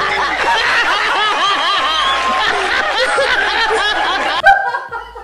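A group of people laughing loudly together, many voices overlapping; the laughter cuts off abruptly about four and a half seconds in.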